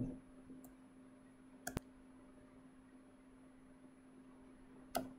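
A few isolated computer keyboard keystrokes: a faint one early, a sharp double click near two seconds in, and another near the end. Under them runs a faint steady low hum.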